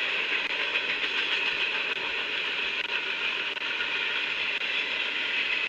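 Mixed freight train rolling past, a steady noise of wheels on rail, heard through a trackside rail camera's microphone.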